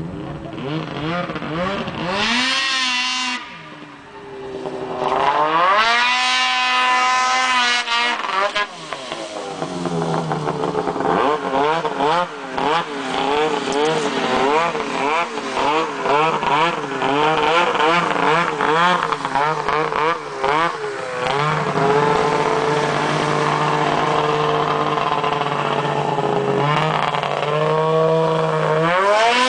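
Snowmobile engine with an MBRP aftermarket exhaust can, revving up from low idle and dropping back twice in the first several seconds. It then runs with rapidly wavering revs for about ten seconds, holds a steadier pitch, and revs up again near the end.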